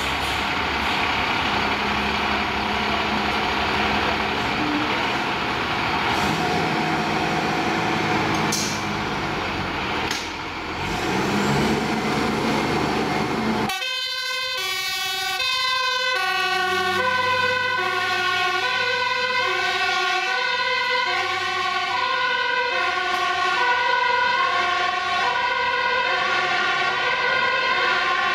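Diesel fire truck engines idling. About halfway through an abrupt cut leads to a fire engine's two-tone siren, alternating steadily between a high and a low note.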